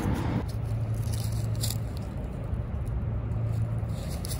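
A steady low motor hum, like an engine running, with a brief break about halfway, and faint light rustling over it.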